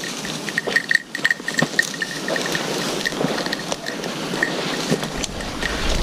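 Footsteps pushing through dry bracken, a steady rustling and crackling, with a small bell tinkling irregularly, busiest in the first second or so. Wind buffets the microphone near the end.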